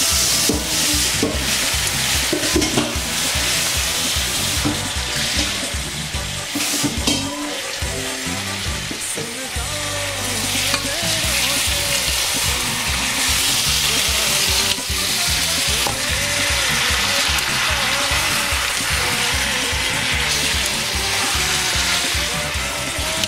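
Pieces of duck meat sizzling in hot oil in a pot, with a steady frying hiss, while a spatula stirs and scrapes through them.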